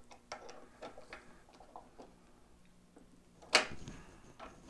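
Light metallic clicks and taps from a screwdriver and hands working on a pinball flipper mechanism, with one sharper clack about three and a half seconds in.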